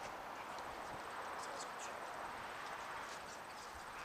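Steady outdoor background hiss with a faint, high insect trill and a few faint short ticks about one and a half and three seconds in.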